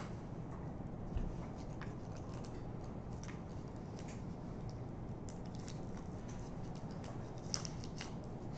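Quiet room tone with a low steady hum, broken by faint scattered small clicks and taps and a soft knock about a second in.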